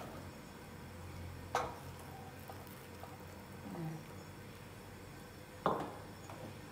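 A pot of soup simmering quietly on the stove while a ladle is dipped in to stir it. There are two light knocks of the ladle against the pot, one about a second and a half in and a louder one near the end.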